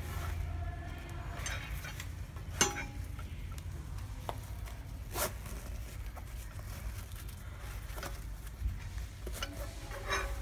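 Cloth wrench roll being handled and its strap tied: fabric rustling, with a few sharp clicks as the steel ring spanners inside knock together.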